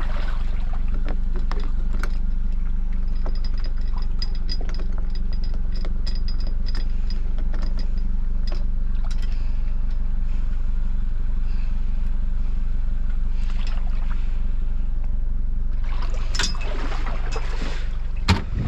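Toyota car engine idling steadily close by, with a scatter of metallic clicks from a boat trailer's hand winch being worked during the first half, and one sharp knock near the end.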